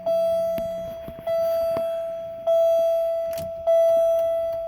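Dashboard warning chime of a 1999 Pontiac Grand Prix GTP sounding four times, about a second apart. Each tone rings and fades until the next one starts. A few faint clicks sound under it.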